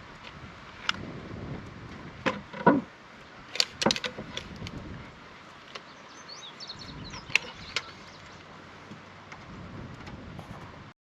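Scattered knocks and clacks of boards and tools being handled, with a quick cluster of sharp ones about four seconds in and two more near eight seconds.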